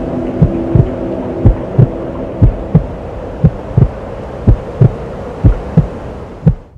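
Heartbeat sound effect in a video soundtrack: paired low thumps about once a second over a low drone that fades away, cutting off suddenly near the end.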